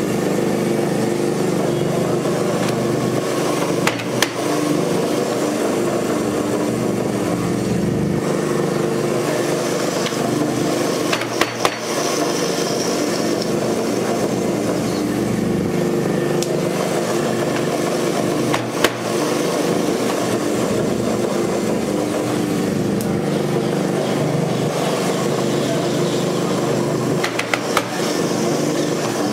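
Electric dough-sheeting machine's motor and rollers running with a steady hum, with a few sharp clicks and knocks of dough and hands being worked.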